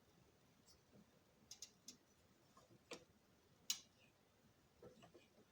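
Faint, scattered clicks and taps of objects being handled while a repaired model-train motor is unpacked, with one sharper click a little past the middle.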